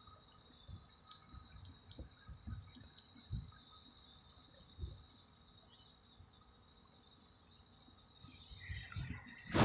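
Insects trilling steadily in the grass, a faint high-pitched sound, with soft low thumps scattered through. A louder burst of handling noise comes near the end.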